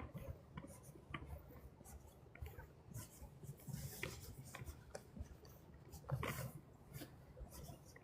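Footsteps rustling and crunching through dry fallen leaves on a trail, an irregular series of faint scratchy crunches about a second apart.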